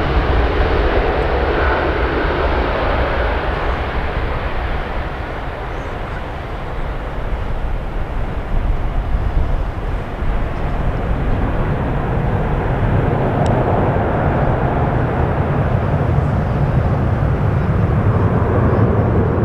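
Boeing 777F freighter's twin GE90 turbofans at takeoff power: a loud jet roar with a deep rumble as the aircraft lifts off and climbs away. The roar eases slightly about six seconds in, then the low rumble swells again in the second half.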